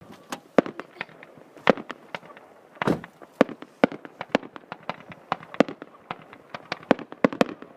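Fireworks display: an irregular string of sharp bangs and cracks, several a second, with one heavier, longer-echoing boom about three seconds in.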